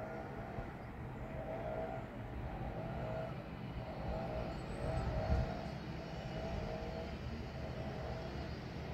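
Steady low rumble of distant road traffic, with a faint sound in the mid range repeating about once a second.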